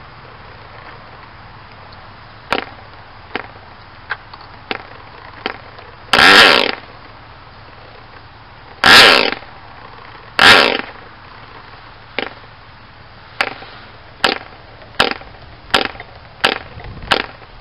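OS Max 15D model diesel engine being flipped over by hand at the propeller: a string of short sharp snaps from the flips, with three brief bursts of firing about six, nine and ten and a half seconds in. It won't keep running, a stubborn start.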